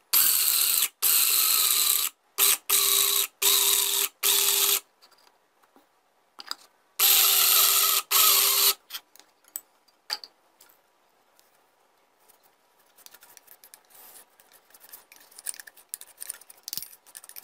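Small electric blade grinder (stainless-steel spice and nut mill) grinding almonds, walnuts and sesame seeds, run in short pulses: about six bursts in the first five seconds, then one longer run of nearly two seconds in the middle. Near the end, faint light taps and ticks as the grinder is handled and the ground nuts are tipped out.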